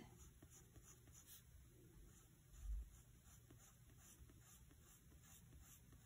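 Faint scratching of a graphite pencil on paper in short, quick strokes as small circles are shaded in. A soft, low bump about two and a half seconds in.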